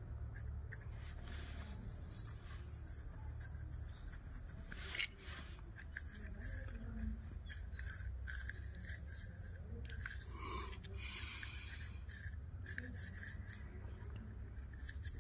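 Faint rustling and scraping as scraps of paper are pushed into the top of a homemade rocket tube by hand, with scattered small clicks and one sharp click about five seconds in, over a steady low rumble.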